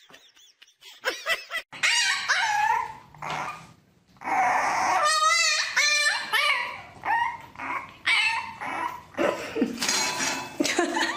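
Dog whining and yipping: a string of short high calls that bend up and down in pitch, with one longer wavering call about five seconds in.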